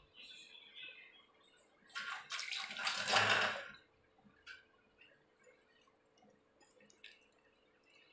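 Wet squelching and sloshing of a hand mixing button mushrooms into a thick spice batter in a glass bowl. It is loudest for about two seconds, starting about two seconds in, and is followed by a few faint clicks.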